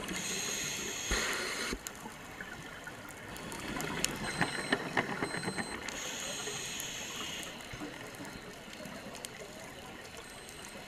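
Scuba diver breathing through a regulator underwater: two hissing bursts of exhaled bubbles about six seconds apart, one at the start and one about six seconds in, with a run of sharp crackling clicks between them.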